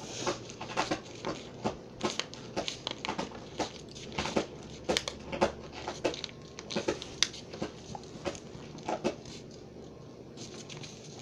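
A sheet of paper being folded and creased by hand into a paper airplane wing: irregular crinkling and rustling, with quick crackles as fingers press and run along the folds.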